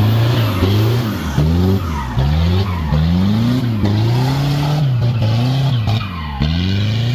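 An off-road 4x4's engine revved hard in repeated pulses as it claws up a muddy rut, the pitch rising and falling about once a second; near the end it climbs and holds a steadier, higher note.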